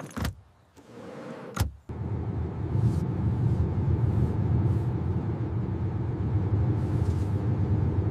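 Two sharp thuds, the second about a second and a half in, then a car's steady low running rumble as it drives.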